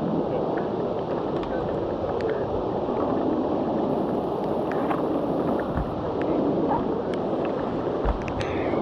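Steady rushing of a whitewater creek around a raft, with scattered light knocks and clicks as the crew paddles.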